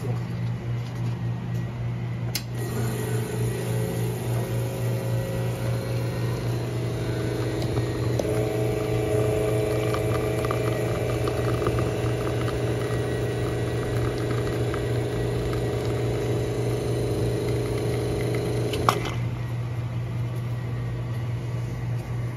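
An electric motor of the espresso equipment, the repaired grinder or the espresso machine, switched on with a click, running steadily for about sixteen seconds with its sound filling out partway through, then switched off with a click, all over a steady low mains hum.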